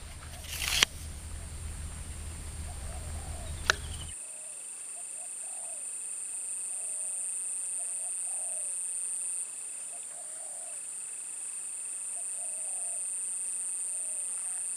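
A few seconds of handling noise with a low hum, a knock and a sharp click. After a cut about four seconds in, insects drone steadily at a high pitch, and short chirping calls repeat about once a second.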